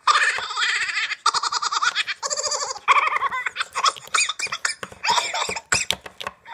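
A high-pitched voice laughing in fast ha-ha-ha pulses, in several long bouts with short breaks between them. It is a put-on, deliberately annoying laugh, the punchline of an "annoying laughing guy" knock-knock joke.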